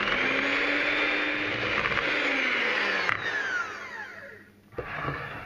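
Electric hand mixer with twin wire beaters whisking flour and milk into a pancake batter, running steadily. About three seconds in it is switched off and winds down with a falling whine.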